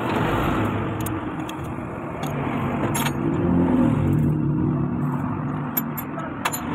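Motor vehicle engines running nearby, a steady mechanical noise with low wavering tones, broken by a few sharp metallic clicks.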